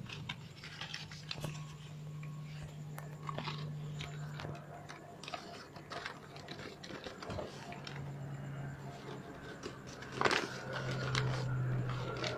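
A cat chewing, with many small crisp clicks and crunches, over a steady low hum. A louder rustle comes about ten seconds in.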